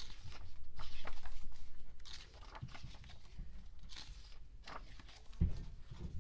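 Paper handling: pages of a glossy photobook being turned and rustled, with a dull thump near the end.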